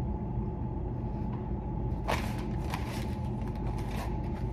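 Faint clicks and smacks of a man chewing a mouthful of burger, the clearest about two seconds in, over a steady low room hum.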